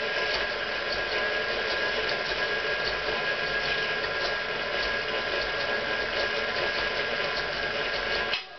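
Electric stand mixer running steadily with its whisk attachment, cutting cold butter into flour. The sound drops out briefly near the end.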